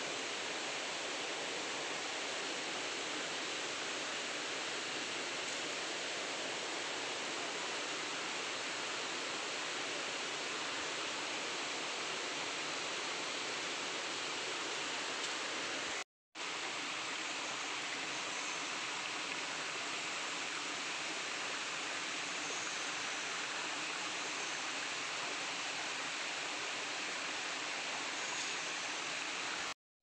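Shallow rocky stream flowing over stones: a steady, even rush of water, cut off for a moment about halfway through and again just before the end.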